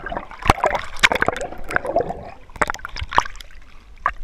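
Water gurgling and splashing around a camera held underwater in a swimming pool, with many quick sharp clicks from air bubbles rising past it.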